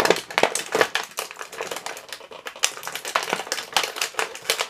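Stiff plastic packaging crinkling and clicking in quick, irregular snaps as an action figure's spare head is worked out of its packet.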